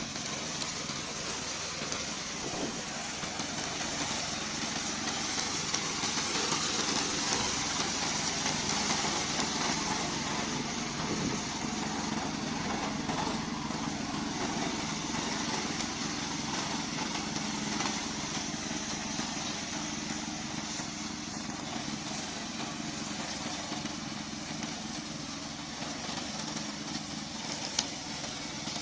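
Engine of a remote control tracked lawn mower running steadily, with a single short click near the end.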